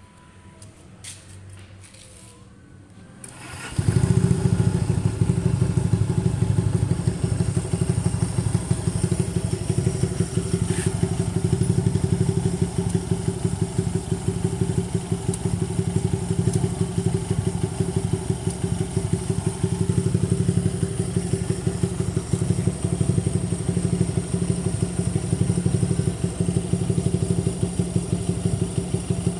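Honda C92 motorcycle's 125 cc twin-cylinder engine starting about four seconds in, after a few faint clicks, then idling steadily in neutral.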